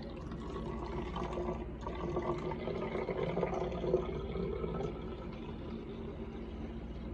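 Juice pouring from a plastic bottle into a water bottle, splashing and gurgling as it fills. It is louder for the first few seconds and eases off about five seconds in.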